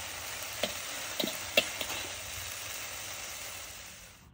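Ginger chicken stir-fry sizzling in a hot wok, with a few sharp metal clinks of a wire skimmer against the wok and plate as the food is scooped out. The sizzle fades out near the end.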